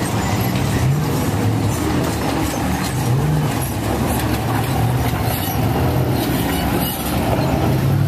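Engines of several off-road race buggies running and revving as they crawl over rocks, their pitch repeatedly rising and falling over a steady mechanical din.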